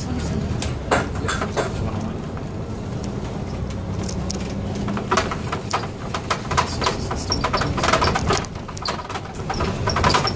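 Inside a moving double-decker city bus: steady low engine and road rumble with a low hum that drops away about halfway through, then a run of sharp clicks and knocks from about five seconds in.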